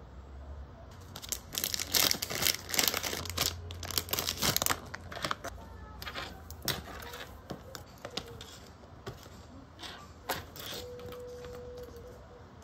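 Crinkling and crackling of plastic packaging as hands handle it, dense and loud for a few seconds. Then come scattered lighter clicks and rustles of phone cases and small accessories being moved about.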